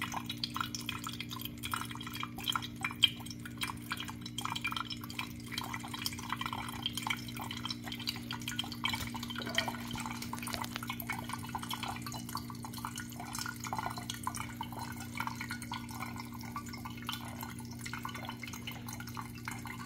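Water trickling and dripping from the brew funnel of a BUNN Speed Brew Elite (CSB2) coffee maker into its glass carafe, in many small irregular splashes. This is the surplus running out because the machine's hot-water tank is full.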